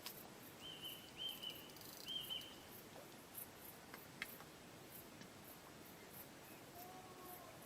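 Faint riverbank ambience: a small bird gives three short high chirps about a second in, over a faint regular high ticking, with a few soft clicks and a lower call near the end.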